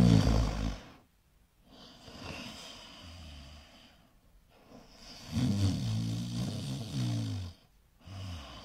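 A sleeping short-muzzled dog snoring in slow, deep breaths, with a loud rattling snore every few seconds and quieter breaths between.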